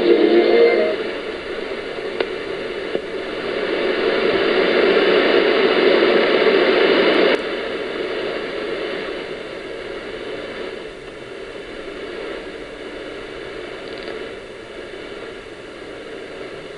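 Shortwave radio static: an even hiss on the frequency between two broadcasts, heard through a receiver with a narrow audio bandwidth. The tail of the preceding music fades out about a second in, and the hiss drops abruptly in level about seven seconds in.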